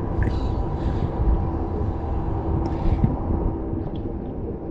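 A motorboat engine running steadily as a drone with a few steady tones, over a dense low rumble.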